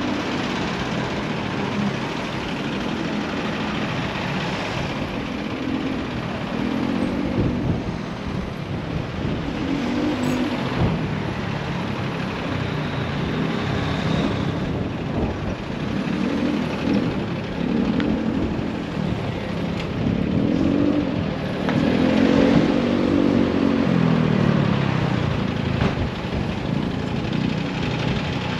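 Road traffic: motor vehicle engines running close by, their pitch rising and falling as vehicles speed up and slow down.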